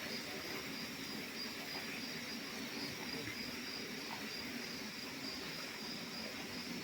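A night insect chorus: a steady, high, finely pulsing trill of insects such as crickets, continuous over a low background hiss.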